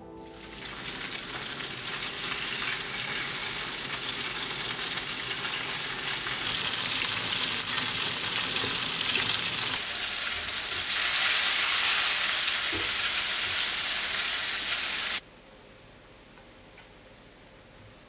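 Food frying in a pan, a steady sizzle that grows louder and cuts off abruptly about fifteen seconds in.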